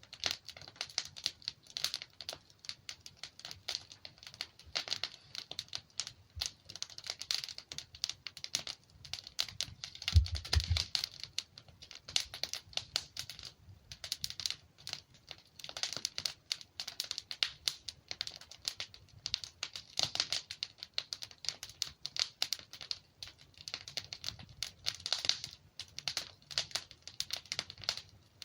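Logs burning in a fireplace, crackling with dense, irregular small pops. A louder, deeper pop comes about ten seconds in.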